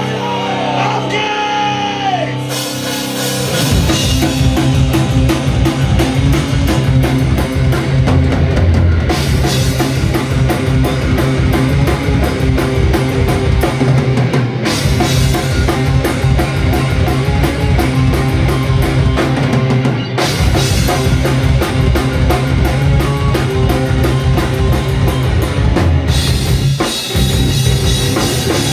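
Live heavy rock band playing loud: distorted electric guitars, bass guitar and a drum kit. A few sliding notes sound alone at first, then the full band comes in about three seconds in with busy drumming.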